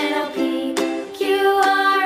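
Background music: a light melody of plucked-string notes.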